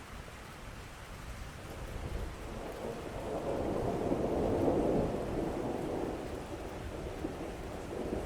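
Rolling thunder over steady rain: a low rumble builds, is loudest about halfway through, then slowly fades while the rain carries on.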